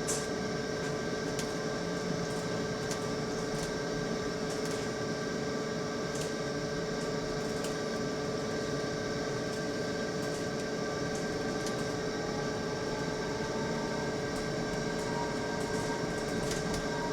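A weird, steady whining hum from the back of a moving bus, several level tones held without rising or falling. Light rattling ticks come through now and then.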